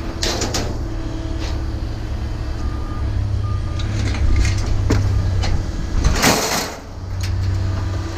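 A large vehicle's engine runs steadily, with scattered knocks and clicks. About six seconds in there is a short, loud burst of hissing.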